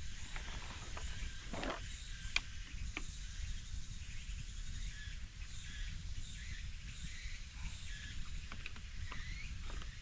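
Summer forest ambience: wind rumbling on the microphone, with faint insect and bird chirps and a few light clicks about two and three seconds in.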